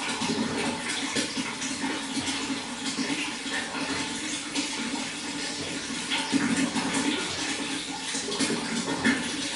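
Running water flowing steadily, with an uneven splashing texture.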